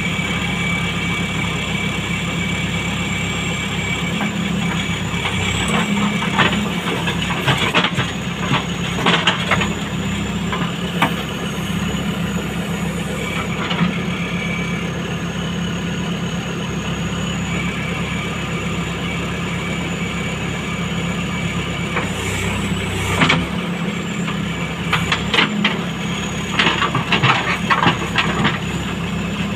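JCB backhoe loader's diesel engine running steadily with a steady high whine while the backhoe bucket digs. Rocks and earth clatter against the bucket in short bursts several times, loudest near the end.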